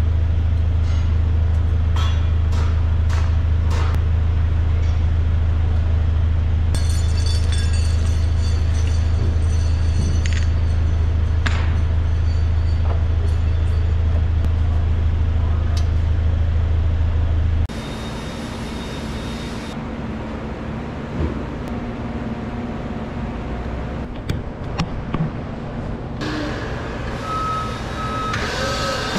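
A steady low engine hum, like a vehicle idling, with scattered sharp metallic clicks and taps. About two-thirds of the way through it cuts off abruptly and gives way to quieter workshop background with a few knocks. An intermittent beeping sounds near the end.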